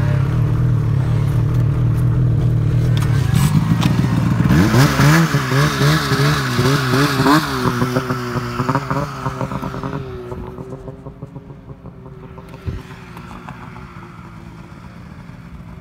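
Snowmobile engine idling steadily, then revving as the sled pulls away through deep snow, its pitch wavering up and down before it fades into the distance.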